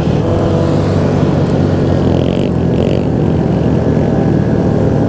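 Motorcycle engines running steadily while riding in a group, with wind noise on the microphone.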